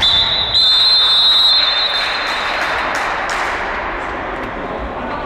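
Referee's whistle blown in the sports hall: a short blast, then a longer one of about a second, shrill and steady. A noisy wash of voices echoing in the hall follows and slowly fades.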